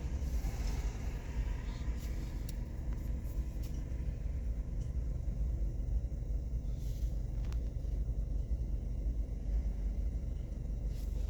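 Ford Escape engine idling steadily, a low rumble, with a few faint clicks.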